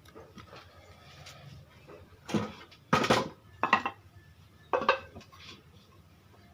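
Wooden pieces knocking and clattering against each other as they are handled, with four loud knocks between about two and five seconds in.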